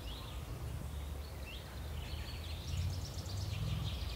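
Outdoor ambience: small birds chirping over a low, steady rumble.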